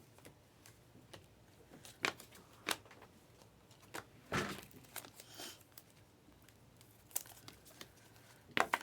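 Foil trading-card pack wrappers crinkling and cards being handled: a scattering of short, soft crinkles and taps a second or so apart.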